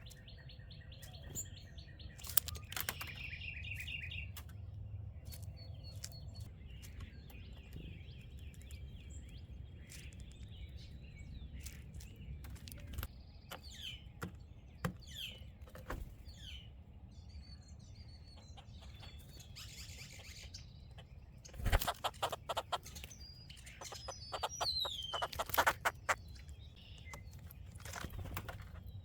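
A mix of wild bird calls, a red-bellied woodpecker among them, with other songbirds chirping. Sharp clicks and knocks come twice, in clusters about two-thirds of the way in and a little later, over a steady low rumble.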